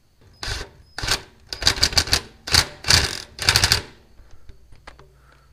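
Ratchet wrench clicking in about five quick bursts of strokes while it tightens an Allen bolt on a new two-piece clutch brake, inside a truck's clutch housing.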